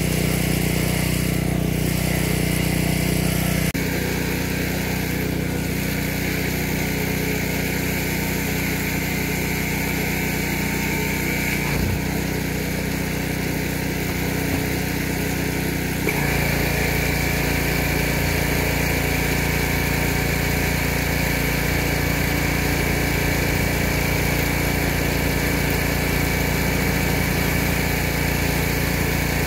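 Pressure washer's small engine running steadily under load, with a high hiss over it. The sound changes abruptly twice, about four seconds in and again about sixteen seconds in.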